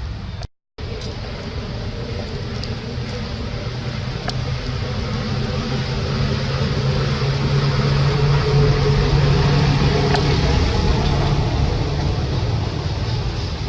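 A motor vehicle's engine hum over steady outdoor noise, growing louder through the middle and easing off near the end, as a vehicle passes close by. The sound drops out for a moment near the start.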